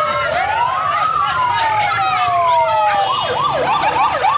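Sirens of a motorcade's police escort passing close by: two slow rising-and-falling wails overlap, then about three seconds in a siren switches to a fast yelp of about three cycles a second.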